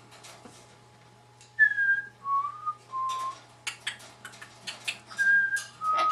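Umbrella cockatoo whistling a short tune: three clear notes, each held briefly and stepping down in pitch. The phrase starts again near the end, with quick clicks and rustles between the phrases.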